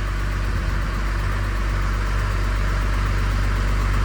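Cummins diesel engine in a swapped truck idling steadily, warming up.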